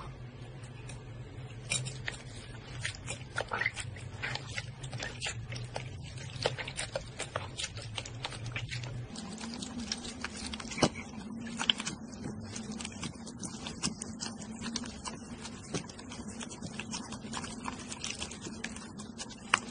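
Hands squeezing and kneading slime in a bowl of water: wet squelches, pops and clicks in quick irregular succession, over a steady low hum that shifts up in pitch about nine seconds in.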